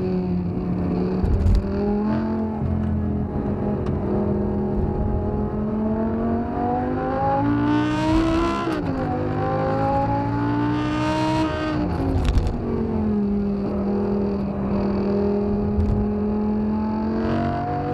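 First-generation Audi R8's 5.2-litre V10, tuned to 600 bhp with a Quicksilver Supersport exhaust, heard from inside the cabin on a hot lap. The revs climb to a shrill top about eight seconds in and drop sharply, climb again and fall away about twelve seconds in, then hold steady before rising once more near the end.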